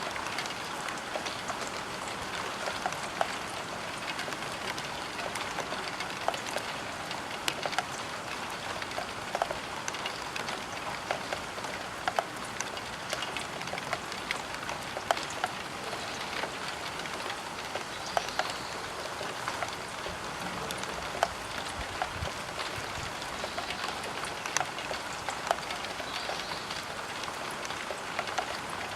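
Steady rain on a roof window: an even hiss with individual drops tapping sharply and irregularly on it.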